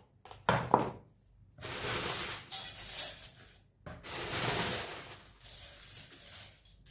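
Dry vegetable and fruit peels rustling and crackling as a hand and a steel mixer jar scoop through them in a plastic tub, in two long stretches. A short clatter comes just before, about half a second in.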